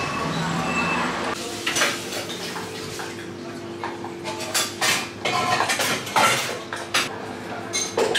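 Cups, saucers and cutlery clinking and clattering behind a café counter, starting about a second and a half in, over a steady low hum.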